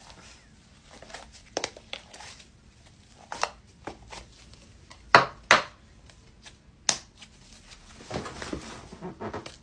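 Handling noises at close range: scattered clicks and rustles, with two loud sharp knocks in quick succession about five seconds in, another click a little later, and a spell of rustling near the end.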